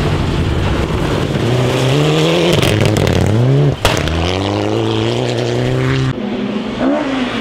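Rally car engine revving hard as it accelerates, the pitch climbing twice with a brief sharp break at a gear change about halfway through, then holding high revs. The engine sound drops away abruptly about six seconds in.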